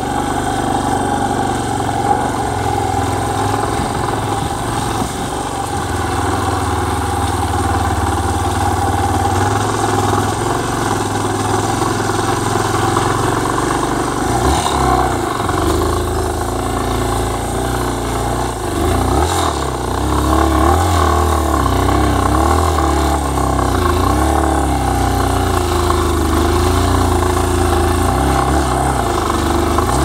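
Yamaha trail motorcycle's engine running while riding a dirt track. Its note is steady at first, then rises and falls with the throttle from about halfway through.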